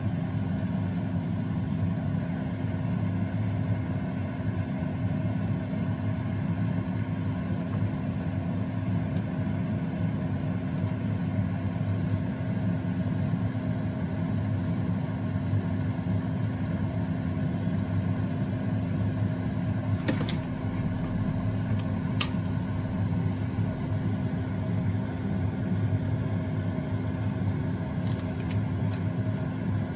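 Steady hum of an electric fan motor running, with two light clicks about twenty seconds in.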